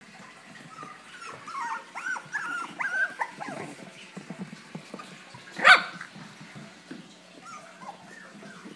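Bichon Frise puppies yipping in play: a quick run of high little barks in the first few seconds, one much louder sharp bark a little past halfway, then a few softer yips near the end.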